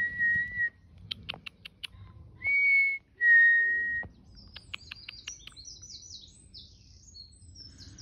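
A two-note whistle, a held higher note then a held lower one, given twice in the first half, with sharp short bird calls between the pairs. From about halfway, small birds chirp and twitter in high, quick notes.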